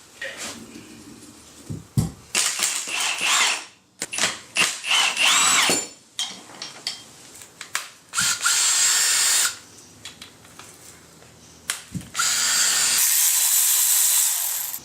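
Cordless power drill/driver running in four bursts of a second or two each, unscrewing the bolts of the rear main seal housing on a BMW S52 engine block, with a sharp knock before the first and last bursts.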